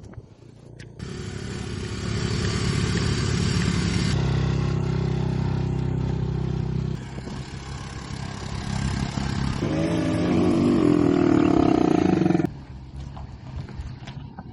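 Motor vehicle engines running hard under load, in several sections that change abruptly; about ten seconds in a wavering, higher-pitched roar rises over them, and the loud sound cuts off suddenly a couple of seconds later.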